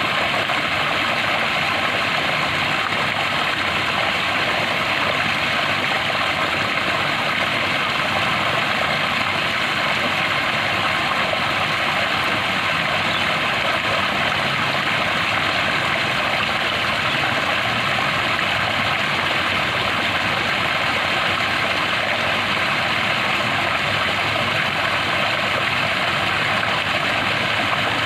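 Flowing water, a steady even rush with no change in level.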